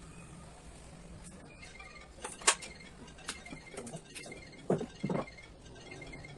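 Scattered clicks and knocks of tools and parts being handled. The loudest is a sharp click about two and a half seconds in, followed by two duller knocks near the five-second mark, all over a faint low hum.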